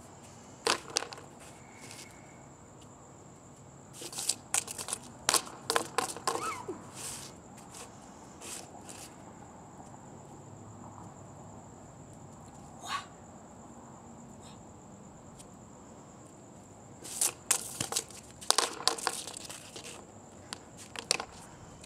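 Hula hoops clattering and knocking on a concrete driveway as they are kicked up from the ground and fall back. The noise comes in a few separate clusters of sharp knocks and rattles.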